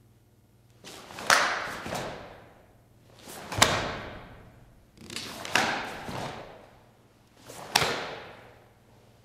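Karate gi swishing and cracking sharply with each of four techniques in a kata, each crack trailing off in the echo of a large hall.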